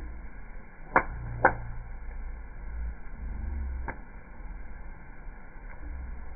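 Wood campfire popping: two sharp cracks close together about a second in and another near four seconds, over a steady low rumble.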